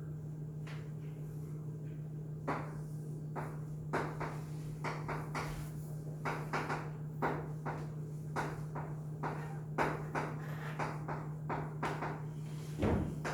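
Irregular light taps and clicks, about one or two a second, over a steady low hum, with a slightly heavier knock near the end.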